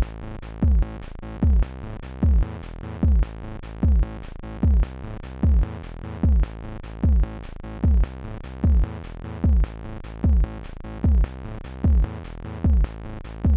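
Synthesized electronic music from an Amiga 4 KB intro: a deep kick drum with a falling pitch about every 0.8 seconds, light hi-hat ticks between the kicks, over a steady held chord.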